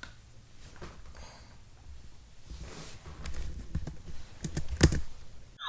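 Scattered clicks and taps close to the microphone. They grow busier in the second half, with one sharp knock near the end.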